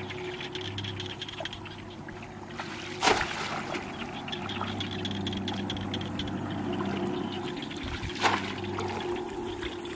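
Water sloshing and trickling around a bamboo plunge basket worked by hand in shallow muddy water, with two sharp splashes about five seconds apart as the basket is set down into the water. A faint steady hum runs underneath.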